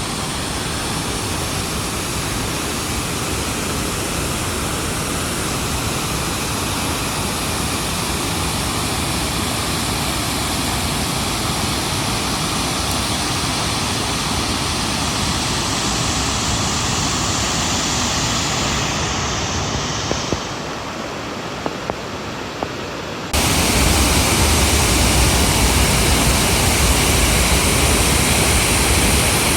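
Lower Lewis River Falls, a steady rush of falling water. About twenty seconds in it eases slightly, with a few light clicks. Then it cuts suddenly to a louder, deeper rush.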